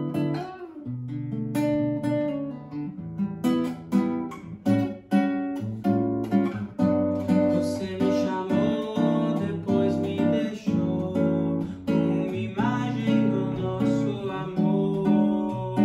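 Solo nylon-string classical guitar played fingerstyle in a bossa nova style: plucked bass notes under chords in a steady rhythm.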